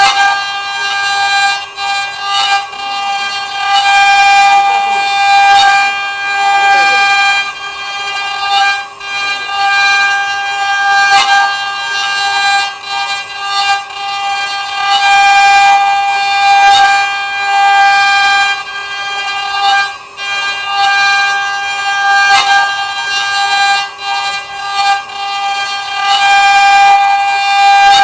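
CNC wood router's spindle cutting wood, a steady high-pitched whine with its loudness rising and falling as the cutter works.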